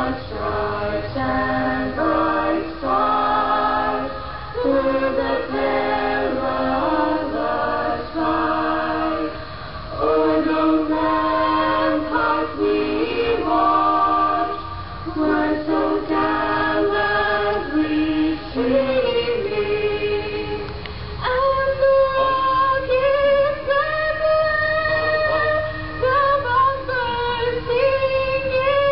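Mixed a cappella vocal quartet, two male and two female voices, singing in close harmony. About two-thirds of the way in, a higher voice takes over, holding long notes above the others.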